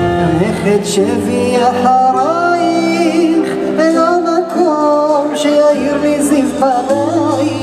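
Live band music: a singer carries a wavering melody over sustained keyboard chords and a double bass line that moves every second or two.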